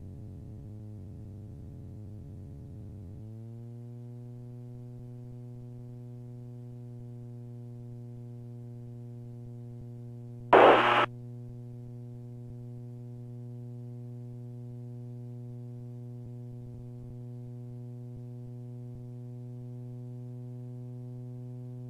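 Super Petrel amphibian's engine at takeoff power, a steady hum with a clear pitch; it is rougher for the first three seconds, then settles as its pitch rises slightly. A brief loud burst cuts in once about halfway through.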